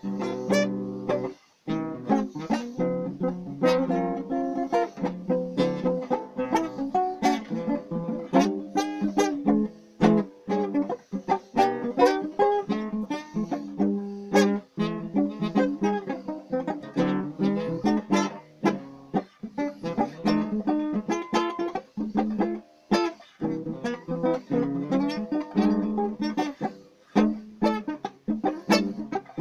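Acoustic guitar played solo, a continuous run of plucked notes and chords.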